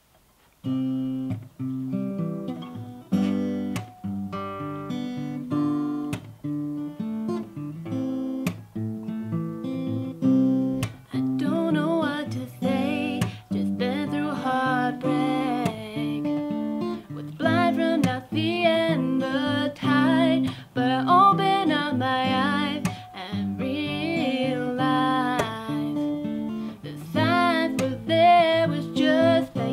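Acoustic guitar strummed alone at first, then a young woman's solo singing voice joins over the guitar about eleven seconds in.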